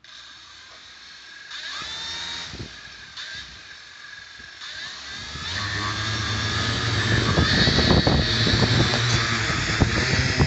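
Small high-speed electric motors whining, with their pitch rising twice as they speed up. From about halfway in, a louder low rumble with irregular knocks builds up underneath.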